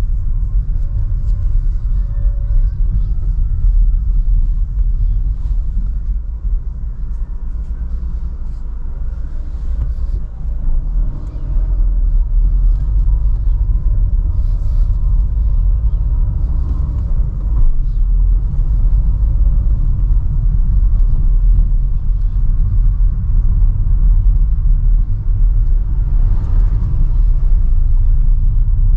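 Cabin noise of a 2012 Renault Sandero Stepway with a 1.6-litre 16-valve petrol engine, driving slowly through city streets: a steady low engine and road rumble. It eases off for a few seconds about a third of the way in, then grows louder again.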